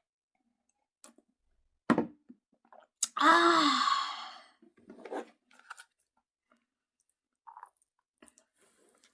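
Mukbang eating sounds: soft mouth clicks of chewing noodles, a sharp low thump about two seconds in, and a short voiced 'ah'-like exclamation about three seconds in that trails off over about a second.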